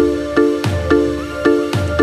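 Electronic background music with a steady beat: a deep thump about once a second under repeated pitched chords that pulse about twice a second.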